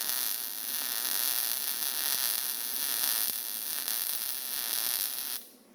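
MIG welder arc running on mild steel: a steady crackling hiss that cuts off suddenly near the end as the torch trigger is released.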